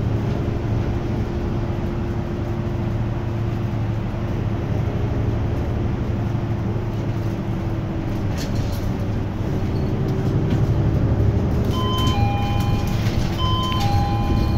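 Diesel engine of a low-floor city bus running steadily while the bus drives, with road noise, heard from inside the cabin. Near the end, a two-note electronic ding-dong chime sounds twice.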